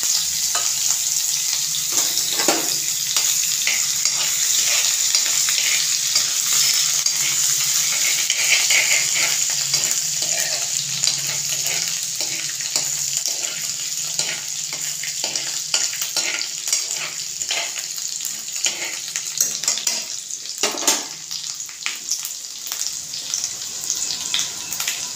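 Grated ginger, green chilli and cumin sizzling in hot oil in a steel kadhai, stirred with a metal spoon that scrapes and clicks against the pan. The sizzle grows a little quieter in the second half.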